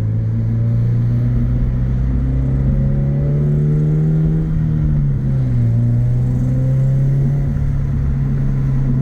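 Car engine and exhaust running at steady revs under way. The pitch climbs gently, then drops about five seconds in and settles.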